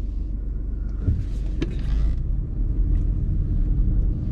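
BMW F20 1 Series car running, a steady low rumble, with a light click about a second and a half in.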